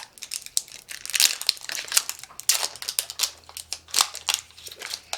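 Crinkly plastic packaging of a blind capsule being crumpled and pulled open by hand, in irregular crackling bursts.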